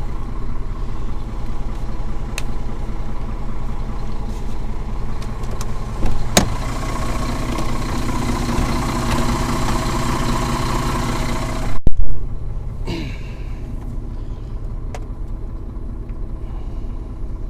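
Scania truck's diesel engine idling, heard from inside the cab. About six seconds in a click comes and the running gets louder for about five seconds. Then a loud short knock, after which it runs quieter.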